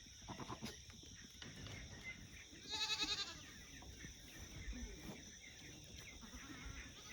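A farm animal, such as a goat, giving one short wavering bleat about three seconds in, over faint scattered small sounds of the farmyard.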